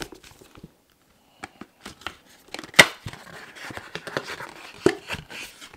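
Cardboard perfume box being handled and opened: scattered light taps and clicks, a sharp snap about three seconds in, then steady cardboard rubbing and scraping as the end flap is worked open.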